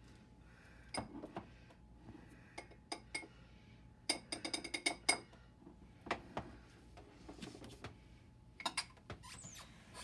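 Faint clinks of a spoon against a small cup or glass, with a quick run of about ten clinks a little past the middle: cornstarch and cold water being stirred into a slurry.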